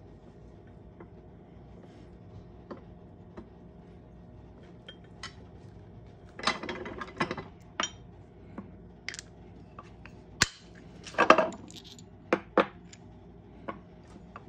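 Steel ring-making tools and die parts clinking and clicking as they are handled at an arbor press and set on a wooden bench. Mostly faint ticks at first, then a run of sharp metal clinks from about halfway through, the loudest a short jangle near the end.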